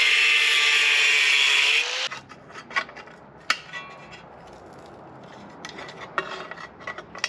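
Small angle grinder cutting rusty sheet steel, a loud, steady rasping whine that rises slightly and stops about two seconds in. After it, quieter scattered clicks and knocks of the sheet steel being bent with locking pliers.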